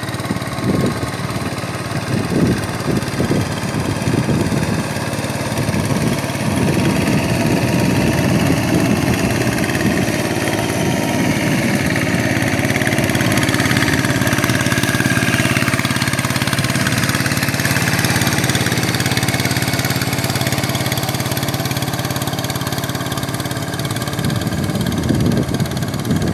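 Two-wheel hand tractor's single-cylinder diesel engine running steadily under load as it drags a leveling board through a flooded rice paddy. It is louder and brighter in the middle, when the tractor is close, and quieter near the start and end, when it is farther off.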